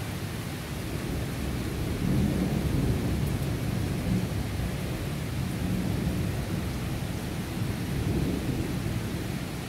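Heavy rain pouring steadily, an even hiss with a low rumble underneath that swells about two seconds in.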